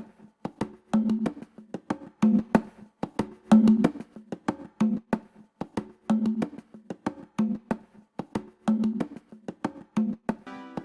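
Intro music with a steady percussive beat, sharp wood-block-like clicks over a low pitched thump; sustained instrument notes come in near the end.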